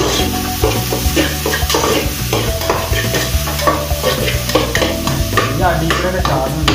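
A metal spatula stirring and scraping chopped onions frying in an aluminium pot, about two or three scrapes a second against the pot, over a steady sizzle. The onions are being sautéed soft.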